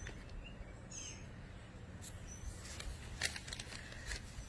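A few faint, short, high bird chirps over a low steady rumble, with a cluster of short clicks and crackles about three seconds in.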